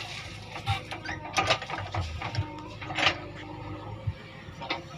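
JCB 3DX backhoe loader's diesel engine running with a steady low rumble, broken by sharp metallic clanks and rattles from the bucket and arm linkage, the loudest about one and a half and three seconds in.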